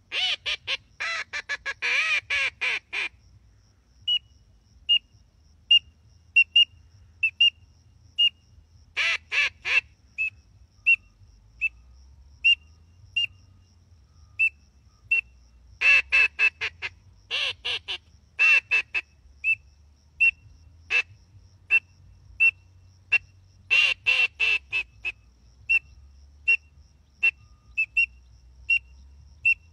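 Reyoka duck call blown to imitate a teal: five runs of rapid quacking notes, with single short high peeps about once a second between them.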